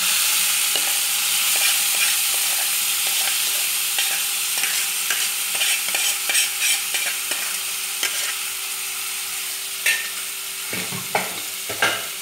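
Jackfruit pieces in masala sizzling in hot mustard oil in a kadhai, the sizzle easing off gradually, with a spatula scraping and clicking against the pan as they are stirred. A few louder knocks come near the end.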